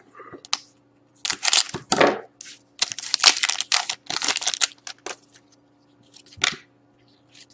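Foil wrapper of a hockey card pack being torn open and crinkled by hand, in several bursts of tearing and rustling, the last a short crinkle about six seconds in.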